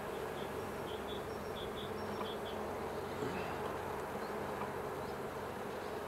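Honeybee colony in an opened hive, buzzing steadily with an even hum.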